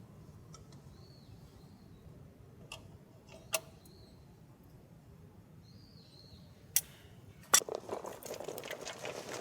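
A few sharp separate clicks and knocks, then about two seconds of dense rustling and clattering near the end, with faint bird chirps in the background.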